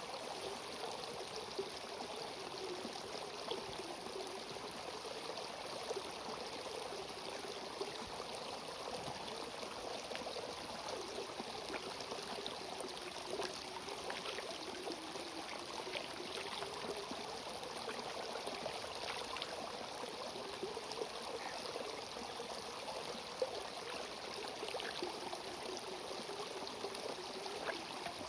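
A small mountain stream running steadily, an even rush of water with a few faint splashes.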